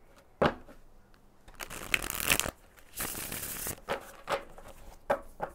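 A deck of tarot cards being shuffled by hand: two short bursts of shuffling, about two and three seconds in, with a few light card taps before and after.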